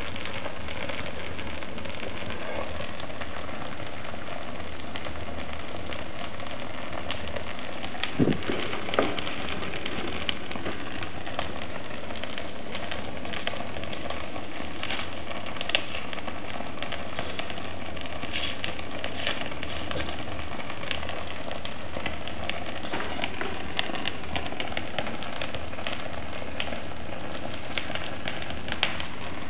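Fire burning in the open firebox of a wood stove, with a leather shoe in the flames: a steady rush with scattered crackles and pops. Two louder knocks come about eight and nine seconds in.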